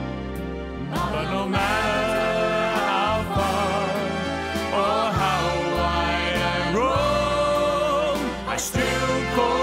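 Background music: a song with singing voices over instrumental accompaniment.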